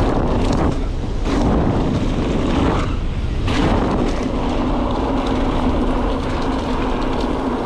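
Wind blasting across the microphone and knobby mountain-bike tyres rumbling over a loose gravel fire road on a fast descent. A steady hum joins in about three and a half seconds in.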